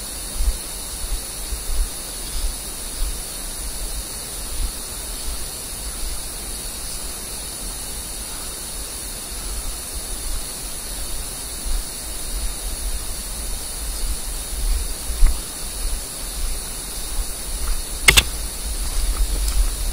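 Steady hiss and low, pulsing wind rumble on a body-worn action camera's microphone during walking, with irregular soft thumps. A single sharp click comes near the end.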